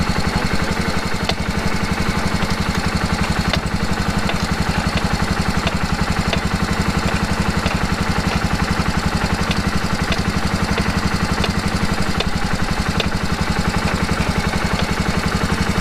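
Kawasaki Prairie KVF360 ATV's single-cylinder four-stroke engine running steadily at idle, with faint scattered light ticks over the engine note.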